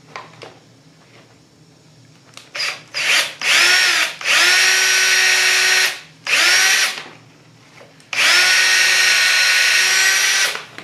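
Cordless drill spinning up and running at a steady pitch in several bursts, boring pilot holes into wooden boards: a couple of short blips, then a run of about two and a half seconds, a short one, and another long run near the end.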